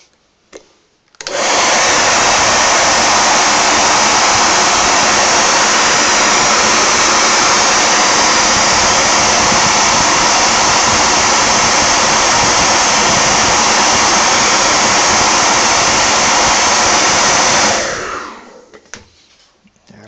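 Handheld hair dryer switched on about a second in, running loud and steady, then switched off near the end and quickly winding down. It is blowing hot air on an ABS plastic part to soften it for a bearing to be pressed in.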